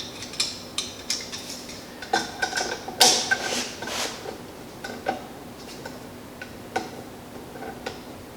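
Irregular small metallic clicks and clinks of hand tools working a steel cotter pin, with a louder clatter about three seconds in.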